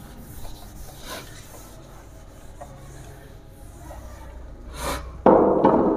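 Cloth duster rubbing across a whiteboard as it is wiped clean, a soft scrubbing sound. About five seconds in there is a sudden much louder sound that dies away.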